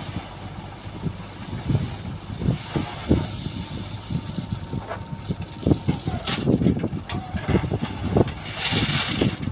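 JCB 3DX backhoe loader's diesel engine working as the bucket digs into a pile of stone chips and lifts the load, with a hiss midway. Near the end, stone chips pour from the bucket into the tractor's metal trolley with a rattling, rushing clatter.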